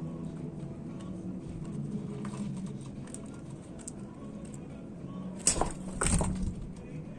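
Birds at a feeding spot, with low cooing and faint scattered ticks, and two loud brief bursts about five and a half and six seconds in.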